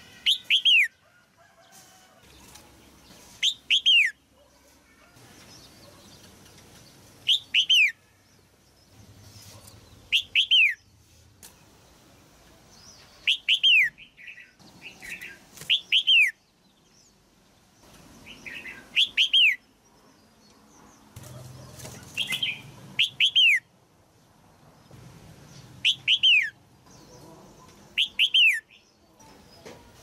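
Caged red-whiskered bulbul calling: short phrases of two or three quick notes, each falling in pitch, repeated about every three seconds.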